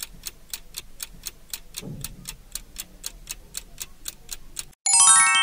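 Stopwatch ticking sound effect, about four ticks a second, for a countdown timer. Near the end the ticking stops and a louder, bright descending chime rings out as the countdown ends.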